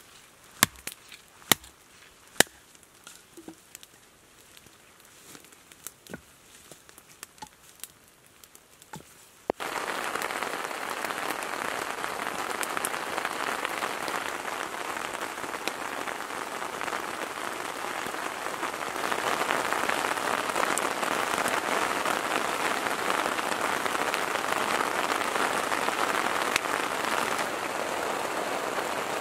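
A few sharp knocks in the first seconds, then, from about a third of the way in, a steady downpour of heavy rain, which grows louder about two-thirds of the way through.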